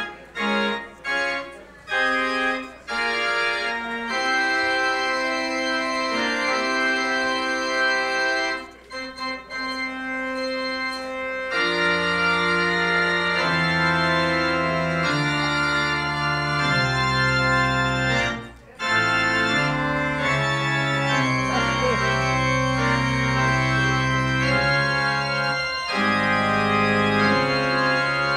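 Church organ playing a postlude. It opens with short detached chords, then moves into longer held chords, with deep bass notes coming in about twelve seconds in.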